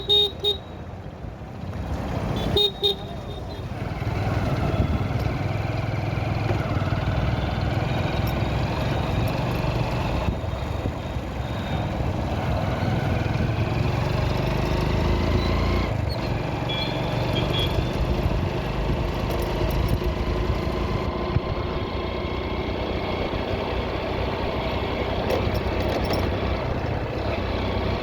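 Road traffic heard while riding: steady engine, tyre and wind noise, with short vehicle horn honks at the start and again about three seconds in.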